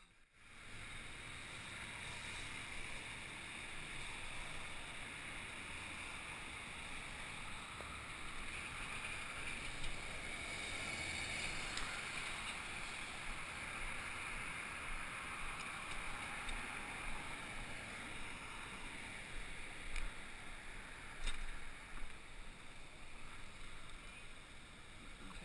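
Steady rushing wind noise on a small action camera's microphone as the bicycle is wheeled and ridden, with a few short knocks near the end.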